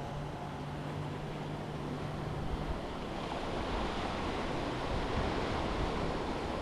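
Surf washing onto a sandy beach, a steady rush of noise that swells a little toward the end. A low steady hum sits under it for the first few seconds.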